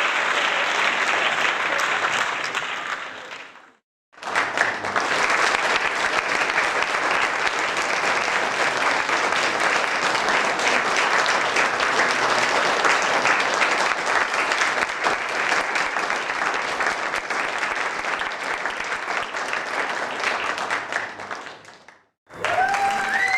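Audience applause, dense and steady clapping. One applause recording fades out about four seconds in. After a brief silence a second one starts abruptly and runs until it fades to silence near the end, and a third begins just before the end.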